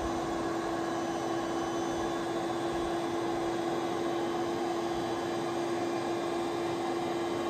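Electric air-mattress pump running steadily as it inflates the mattress: a constant hum over rushing air.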